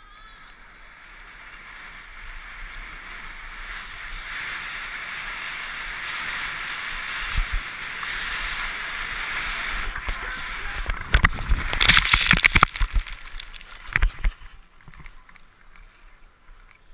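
Skis hissing on packed snow with wind rushing past a helmet camera, growing louder as speed builds. About eleven seconds in come a burst of loud scraping and knocking as the skis skid sideways, throwing up a spray of snow, and one more knock about a second later, then it quiets.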